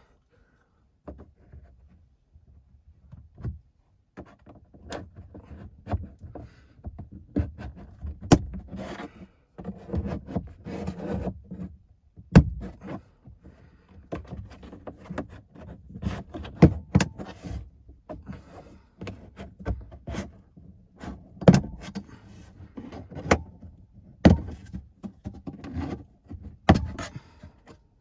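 Plastic dashboard trim being worked loose by hand in a car interior: rustling and rattling of the panel, with irregular sharp clicks and snaps as its retaining clips let go.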